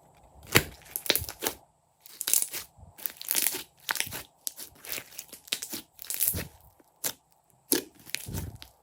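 Hands working slime, squeezing and pulling it: a run of irregular crackling, tearing bursts with a few sharp pops, separated by short gaps.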